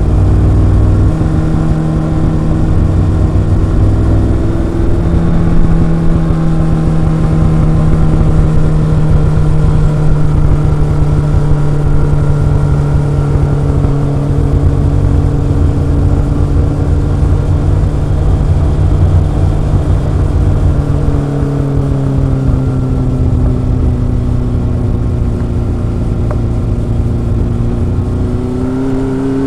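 Kawasaki ZRX inline-four motorcycle engine and exhaust under way, its note holding fairly steady with slow gentle rises and falls, then climbing near the end as the bike speeds up.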